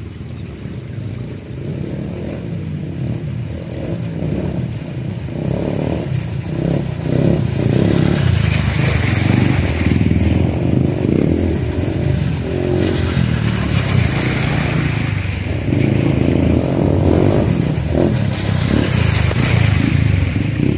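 Dirt-bike engines revving unevenly as trail motorcycles ride up a shallow, rocky river bed, with water splashing and hissing under the wheels. The sound grows louder as a bike comes close near the end.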